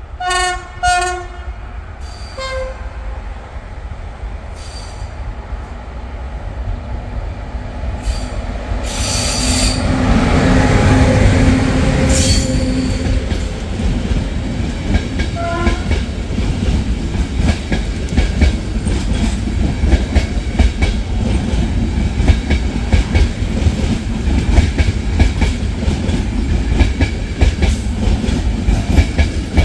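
Electric locomotive EA 819 sounds two short horn blasts, then the train runs past, a loud rumble with the wheels clattering over the rail joints that builds up about ten seconds in.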